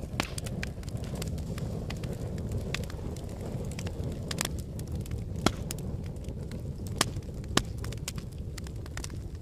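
Fire crackling over a low steady rumble, with scattered sharp pops and three louder snaps in the second half.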